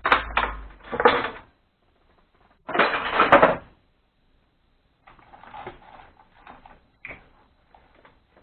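Hand tools working on the spark plug of a small two-stroke scooter engine: two short bursts of metallic ratcheting and clicking, then fainter clatter of parts and tools being handled.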